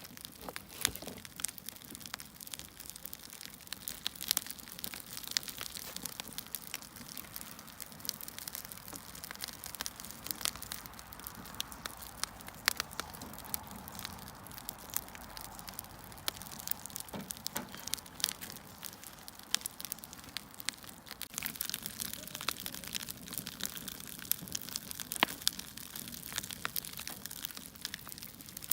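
Burning firewood crackling: a dense, irregular run of sharp pops and snaps over a soft steady hiss.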